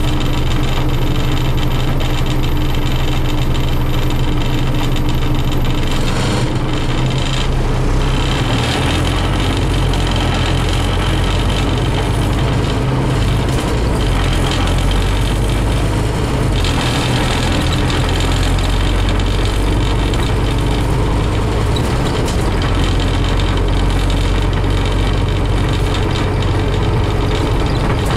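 Scania CN270UB city bus's diesel engine and drivetrain heard from inside the passenger cabin while the bus drives, a steady low hum with road noise. The engine note shifts in pitch several times, first about six seconds in.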